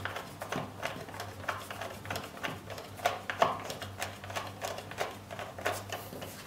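Small hand screwdriver driving 2 mm metric screws into the plastic undercarriage mount of a foam RC plane: a run of irregular light clicks and ticks, several a second.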